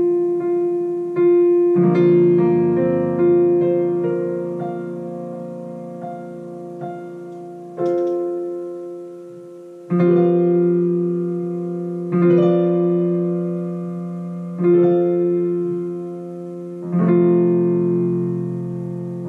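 Digital piano played slowly: full chords struck every two seconds or so, each left to ring and fade before the next.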